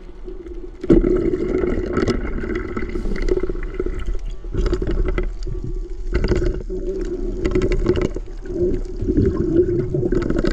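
Underwater gurgling and bubbling over a steady hum, heard through a waterproof camera's housing, as a fish is speared and thrashes on the spear. The noise jumps up suddenly about a second in and then comes and goes in rough bursts.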